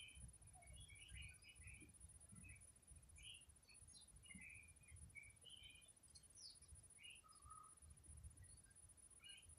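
Faint, scattered short bird chirps and peeps, many in a row with no steady rhythm, over a low rumble.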